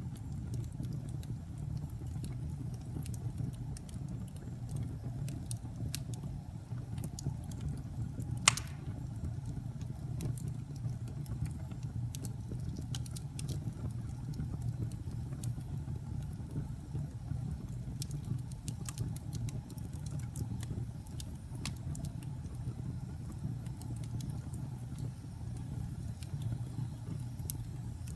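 Wood fire burning: a steady low rumble of flames with scattered crackles and small pops, and one louder pop about eight and a half seconds in.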